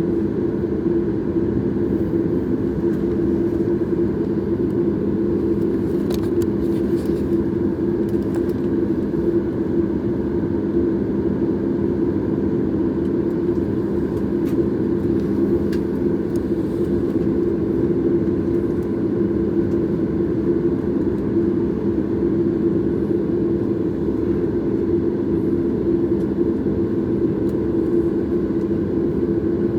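Steady cabin drone inside a Boeing 737 MAX: the CFM LEAP-1B jet engines and rushing air make an even, unchanging rumble with a steady low hum through it. A few faint ticks come in about six to eight seconds in.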